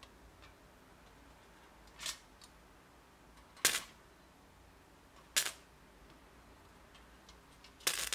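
Sharp electric snaps as a probe wired to a charged electrolytic capacitor bank touches aluminium foil, arcing and vaporizing holes through it. Four snaps about one and a half seconds apart, the last a longer double crackle.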